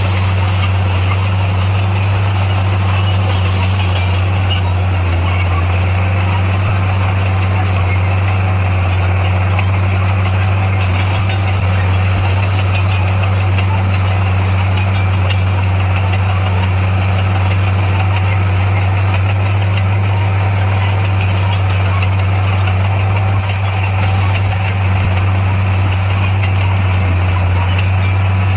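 Heavy earthmoving machine's diesel engine running steadily: a constant low drone that holds the same pitch and loudness throughout.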